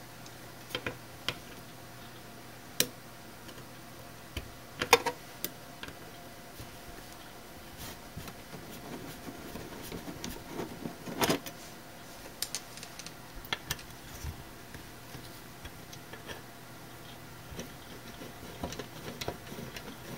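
Flathead screwdriver working the screws out of a metal camera housing: scattered metallic clicks and taps, with quiet scraping in between.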